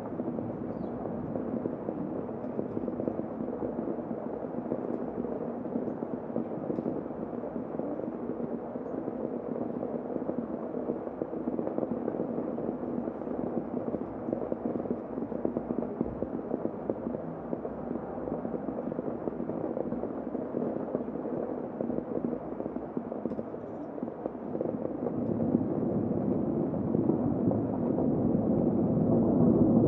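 Heavy rain heard from inside a room, a steady muffled rush that swells louder over the last few seconds.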